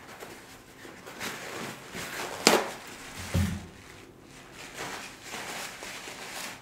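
Paper towel rustling and crinkling as a sheet is pulled off the roll and used to wipe hands, with a sharp click about two and a half seconds in and a dull thump soon after.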